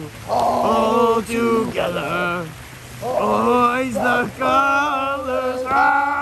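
Male voices chanting in long held, wavering notes, phrase after phrase, over the steady splash of fountain water jets.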